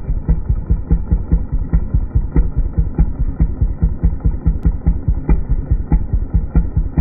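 An engine idling with a low, lumpy beat of about four pulses a second, muffled, with no high end.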